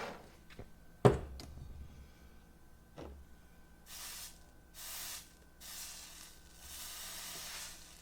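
A propane torch's flame noise stops right at the start. A sharp knock follows about a second in, with a few light clicks, then four short hissing bursts in the second half.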